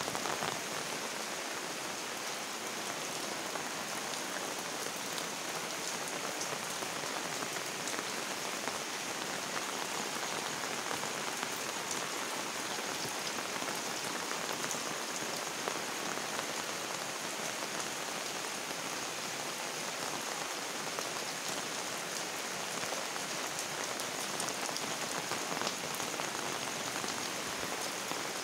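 Steady rain falling on leaves: an even hiss dense with small drop ticks.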